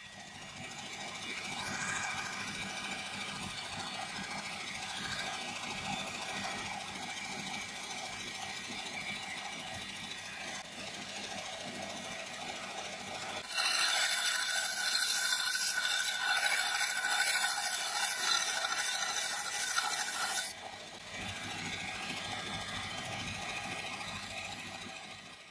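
Belt grinder running with a steady hiss from its abrasive belt. About halfway through, a steel cleaver blade is pressed to the belt and the grinding turns louder and brighter for several seconds, then eases back to the belt running on its own.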